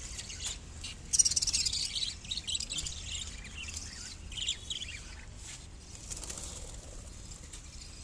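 A flock of budgerigars chirping and chattering, with a busy run of quick high chirps about a second in and a shorter one around the middle.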